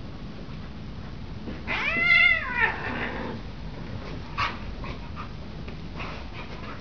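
A cat gives one loud yowl, a call that rises and then falls, about a second long, while tussling with a dog. A few faint scuffling knocks follow.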